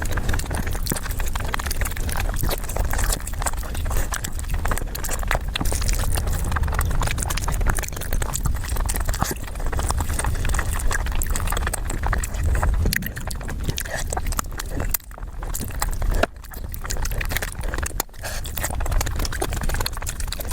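Close-miked eating: a person chewing and crunching mouthfuls of food in a steady stream of wet clicks and crackles, with short breaks near the end.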